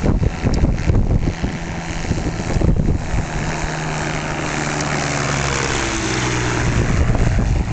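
Kolb Mark III ultralight's engine and propeller droning as it comes in low to land, growing louder and dropping in pitch as it passes close by, with wind buffeting the microphone in the first few seconds.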